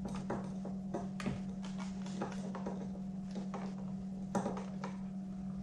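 Phillips screwdriver turning a screw out of a car's interior door panel: irregular small clicks and taps of metal on screw and plastic, over a steady low hum.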